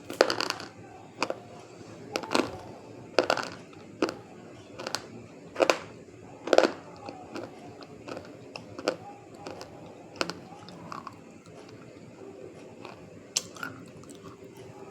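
A person biting and chewing hard, brittle white pieces close to the microphone. Loud, sharp crunches come every second or so for about seven seconds, then softer chewing with only an occasional crunch.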